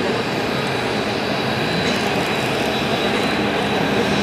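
Kawasaki T-4 jet trainers' twin turbofan engines running steadily as the jets roll along the runway, a constant jet rush with a thin high whine over it.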